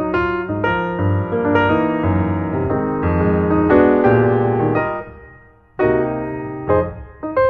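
Background piano music, a run of struck keyboard notes and chords. The notes fade out briefly about five seconds in, then the playing starts again.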